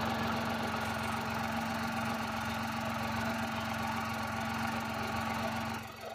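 Tata Punch's 1.2-litre three-cylinder petrol engine idling steadily, heard close up with the bonnet open: a steady hum that drops away just before the end. It is a BS6 Phase 1 engine with about 10,000 km on it.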